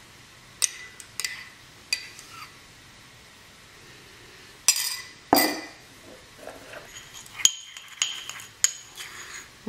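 A metal teaspoon clinking against a small white ceramic ramekin as egg white is worked into icing sugar for royal icing: a few light taps early, two louder knocks about halfway, then quick repeated clinks and scraping as the spoon stirs the mixture.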